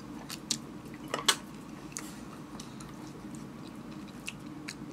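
Spoon and chopsticks clinking against a bowl while eating: a few short, scattered clicks, the loudest about a second in, over a steady low hum.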